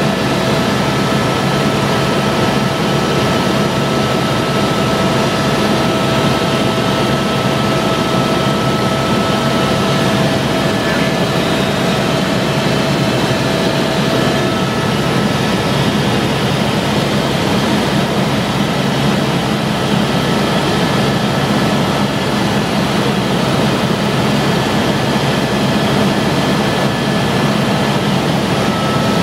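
Helicopter in cruising flight heard from inside the cabin: a loud, steady drone of engine and rotor with thin whining tones above it, two of which fade out partway through.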